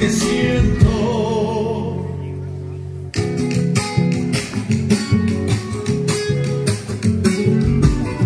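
Music with guitar: a held chord fades away after about a second, then strummed guitar comes back in with a steady rhythm about three seconds in.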